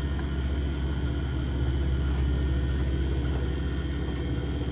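Refrigerant vacuum pump running steadily as it evacuates a newly installed air-conditioning system, giving an even motor hum.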